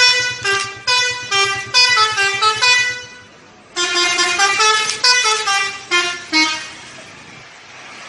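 A bus's multi-tone 'telolet' horn plays a quick melody of short stepped notes in two phrases of about three seconds each, with a short pause between.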